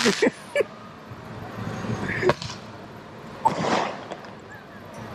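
Fireworks: a few sharp, separate cracks, with a brief hiss about three and a half seconds in.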